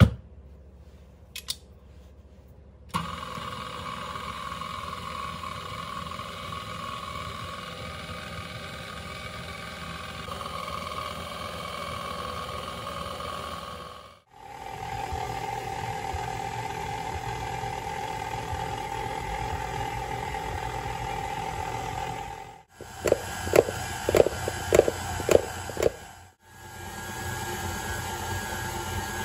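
KitchenAid Classic stand mixer switched on about three seconds in, its motor running steadily with a held whine as the dough hook works flour and milk into bun dough. The sound breaks off briefly twice, and a run of rapid knocks comes about three-quarters through.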